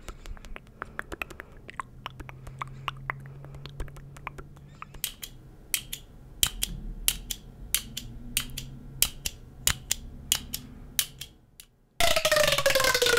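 Soft scattered clicks close to the microphone. Then a small stapler is clicked open and shut over and over in a steady run of sharp clicks, roughly in pairs. About a second before the end, a corrugated plastic pop tube is pulled, giving a loud crackling rasp with a falling whine.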